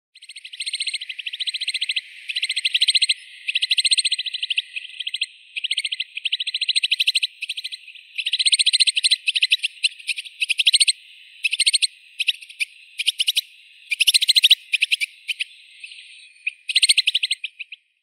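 White-winged snowfinch calling: fast, dry chattering trills in bursts of about a second, repeated with short gaps.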